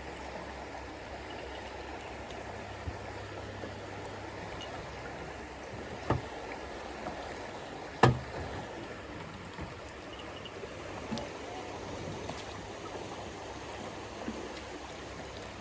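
River water rushing steadily around a drifting boat, with a few sharp knocks, the loudest about six and eight seconds in.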